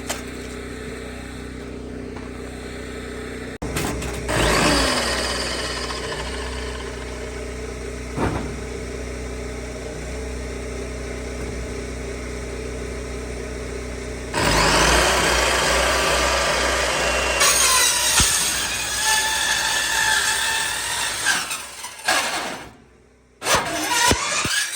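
A power saw cutting through a culvert pipe, with short rising bursts as the saw speeds up. A steady engine hum runs underneath. The cutting gets louder about two-thirds of the way through and cuts off abruptly near the end.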